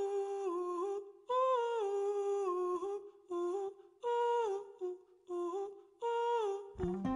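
Wordless hummed vocal melody in phrases about a second long with short gaps between them, the soft intro of a song. A full band with percussion comes in right at the end.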